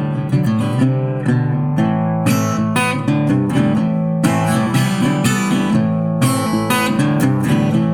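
Acoustic guitar strummed in a steady rhythm, chords rung out in the instrumental break of a song.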